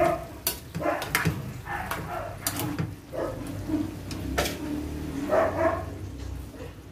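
Metal ladle knocking and scraping against a cooking pot as a stew of chicken and potatoes is stirred, with a few sharp clinks. A few short pitched calls sound in the background.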